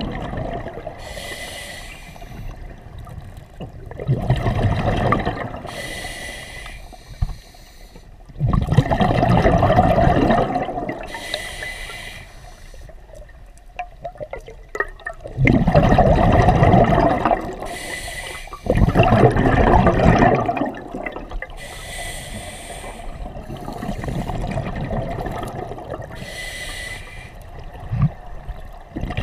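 A scuba diver breathing through a regulator underwater: a short hiss on each inhalation, then a louder rush of exhaust bubbles on each exhalation, the cycle repeating about every four to five seconds.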